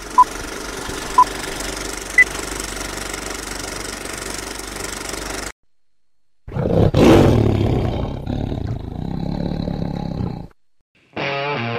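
Old-film countdown sound effect: a steady projector-style whir and crackle with a short beep once a second, the third beep higher, cutting off suddenly. After a second's pause comes a long lion roar like the MGM logo roar, loudest at its start and fading over about three seconds.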